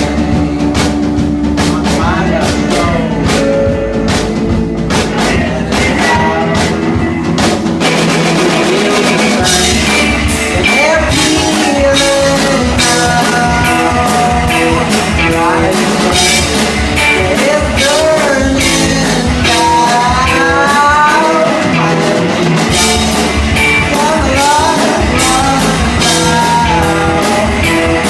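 Live rock band playing an original song: drum kit, guitar and singing, loud and continuous, with the cymbals growing busier about ten seconds in. The recording is rough, what the uploader calls bad sound.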